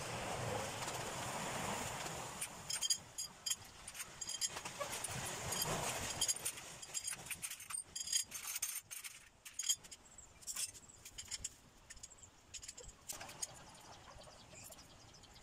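Rustling, then many irregular light clicks and clinks of parts and tools being handled, thinning out and quieter in the last few seconds.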